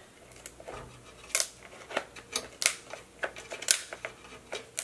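Kitchen shears snipping along a cooked king crab leg, cutting through the spiny shell: a run of sharp, crisp cracks, about two a second, starting about a second in.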